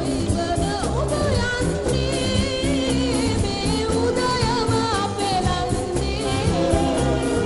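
Sinhala popular song: a singer's voice sliding and wavering through a melody over a steady rhythmic accompaniment.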